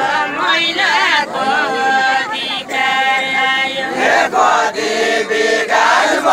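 Unaccompanied Deuda folk singing: men's voices chanting a sung verse in a steady tune, with long held notes.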